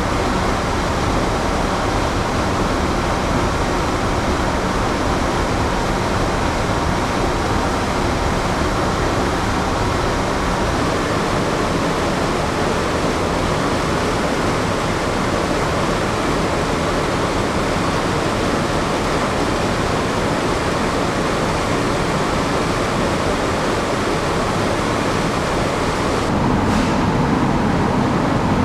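Steady loud hum and rush of a moored ship's onboard machinery and ventilation, heard inside the passenger spaces. Near the end it gets a little louder and deeper.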